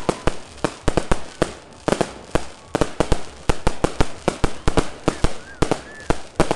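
Fireworks going off in a rapid, irregular barrage of sharp bangs, several a second.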